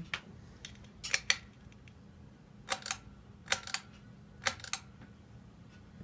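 Pull-chain switches on a Hampton Bay Glendale ceiling fan clicking in four quick pulls, each a sharp double click, as the light is switched off and the fan is stepped up to high speed. A faint steady hum runs underneath.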